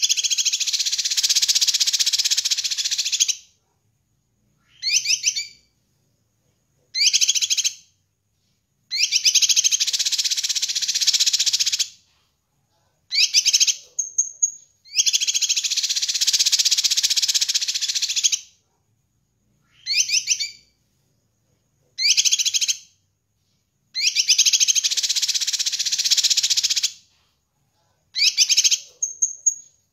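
Cucak kinoi (a green leafbird) singing at full pace: four long bouts of rapid, high twittering of about three seconds each, alternating with short chirped phrases and a few brief rising whistles, with silent gaps between.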